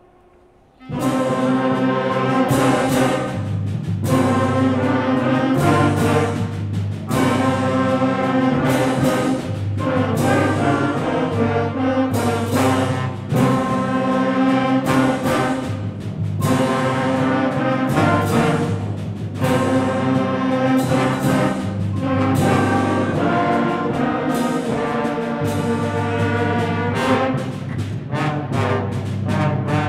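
Junior high concert band starting to play about a second in: loud brass-led chords with timpani and percussion hits marking strong accents.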